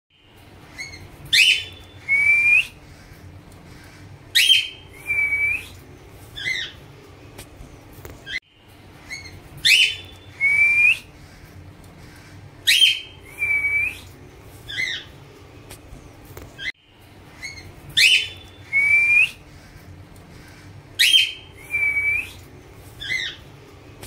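Cockatiels calling: sharp, shrill chirps, each followed by a short curved whistle, several times a few seconds apart. The same run of calls repeats almost exactly about every eight seconds, with a brief cut between repeats.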